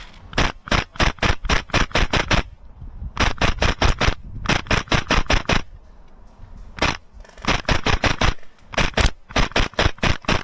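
Airsoft gun firing in repeated strings of rapid shots, about five or six a second, with brief pauses between volleys and one lone shot near the middle.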